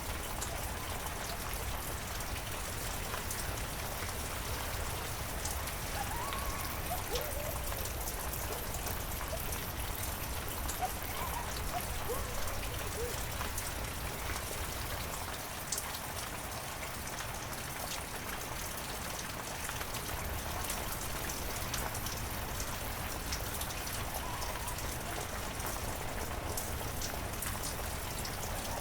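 Heavy rain falling steadily: an even hiss with many distinct drops ticking on surfaces.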